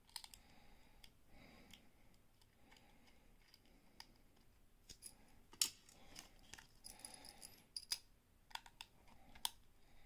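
Faint, scattered clicks and ticks of a small precision screwdriver turning the side screws out of a 2.5-inch laptop hard drive's metal mounting bracket, with the drive and bracket being handled. The sharpest click comes about five and a half seconds in, and more cluster over the next few seconds.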